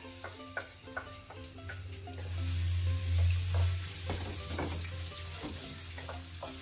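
Chopped onions sizzling in hot olive oil in a wok, stirred with a wooden spatula that knocks and scrapes against the pan. The sizzle swells about two seconds in as the onions hit the oil, loudest a second later, then settles into a steady frying hiss.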